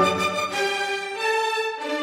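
Instrumental background music with sustained notes that step up in pitch partway through.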